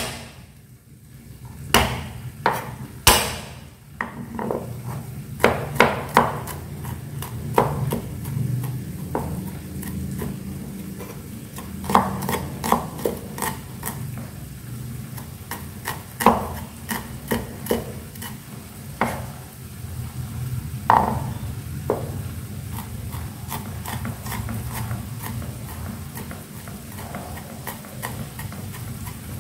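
Cleaver chopping garlic on a wooden chopping board: a few loud, separate strikes in the first seconds, then quicker, lighter chopping as the cloves are minced.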